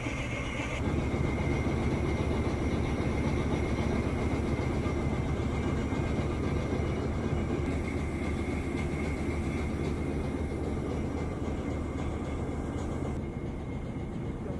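Diesel locomotive running as it passes close by, a steady heavy engine noise with a thin steady whine above it; it gets louder about a second in and drops a little near the end.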